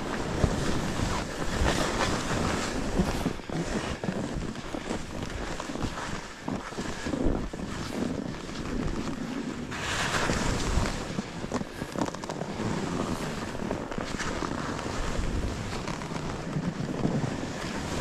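Wind buffeting the microphone of a skier moving downhill, mixed with skis hissing and scraping over snow. It swells and dips unevenly, with a few sharp scrapes.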